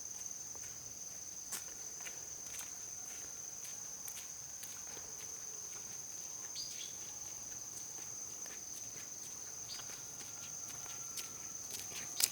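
A steady high-pitched insect drone holds unbroken, with faint scattered clicks and a few sharper ticks near the end.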